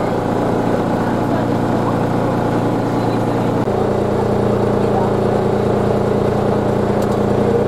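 Kiha 1 railcar's engine idling steadily at a standstill, its note shifting slightly about halfway through.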